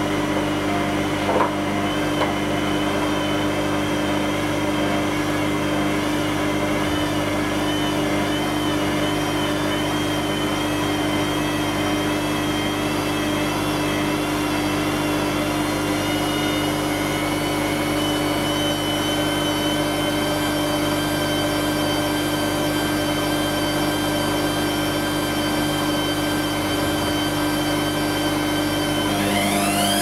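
Whirlpool Indiana 1400 front-loading washing machine turning its drum with a load of laundry: a steady motor hum and whine that wavers at first and then holds steady, with a short knock about a second and a half in. Near the end the whine starts rising in pitch as the drum speeds up into the spin.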